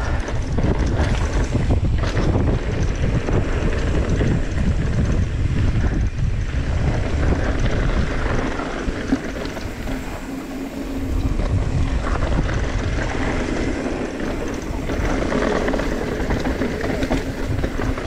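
Wind buffeting the camera microphone over the rumble of mountain bike tyres rolling fast over a dirt and gravel trail, with the bike rattling over bumps.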